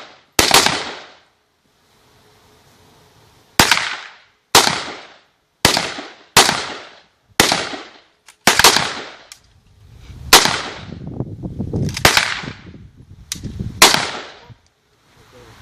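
Rifle fired in single shots, about ten of them, mostly about a second apart after a pause near the start, each shot followed by a short echo.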